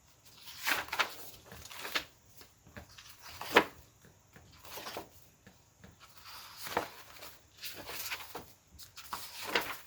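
Hands rummaging through a container of paper scraps and craft pieces: irregular rustling and handling noises with several sharp taps and knocks, the loudest about three and a half seconds in.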